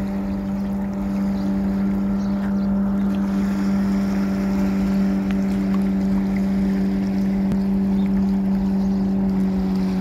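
Speedboat engine running at a steady high speed: an even, unwavering hum.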